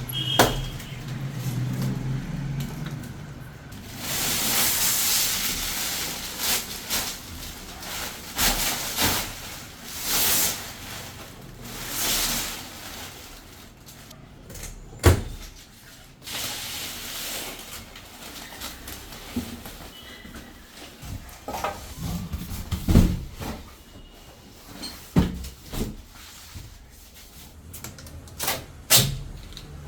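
Unpacking a washing machine: rustling and ripping of packaging in long swells, with sharp knocks and clicks scattered through, the loudest about halfway and again near the end.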